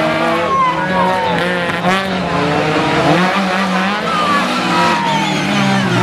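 Two rally hatchbacks running hard one behind the other, their engines revving up and down with gear changes as they pass.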